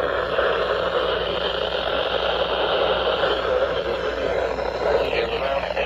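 Steady, even hiss of noise with no tones in it, most energy in the middle and upper-middle range.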